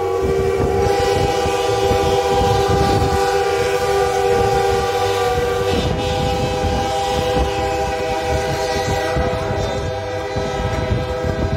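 Steam locomotive whistle held in one long, steady chord of several tones, over the low rumble and clatter of the moving train's wheels on the rails.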